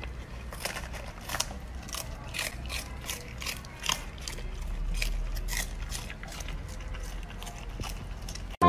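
Golden retriever puppy chewing and tearing crisp napa cabbage leaves: a run of irregular crunches, several a second.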